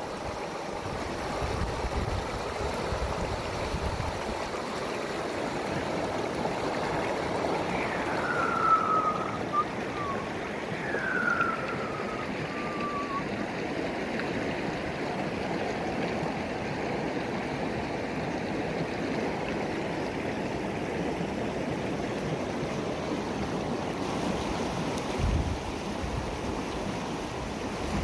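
A swollen, muddy stream rushing and splashing over rocks in a steady flow. About eight and eleven seconds in, two short falling whistled notes sound above it.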